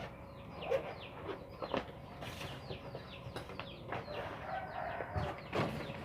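Birds chirping in a rapid series of short, falling cheeps, with a few sharp knocks, the loudest near the end.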